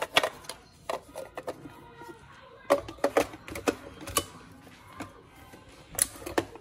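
Clear plastic grounds container handled and fitted into a Krups coffee grinder: a string of sharp plastic clicks and knocks, thickest in the middle and again near the end.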